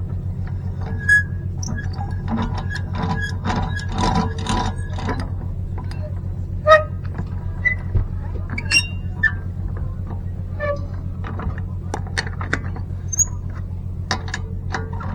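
A steady low hum with many sharp clicks and clinks scattered over it; one louder knock comes about a second in and another near seven seconds.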